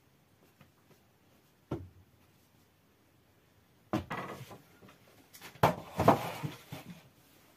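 Wooden knocks and clattering, from a wooden dough board on a metal basin being handled during bread making: one sharp knock about two seconds in, then two bursts of clatter, the loudest near the end.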